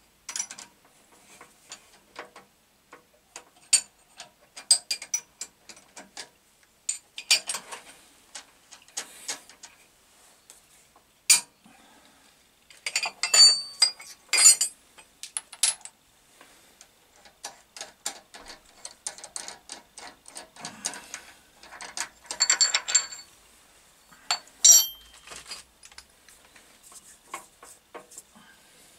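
Irregular metallic clicks, clinks and knocks of steel tooling being handled at a mill/drill: a drill chuck on its arbor being fitted and worked at the spindle. The clatter comes in louder clusters about halfway through and again about two-thirds of the way in.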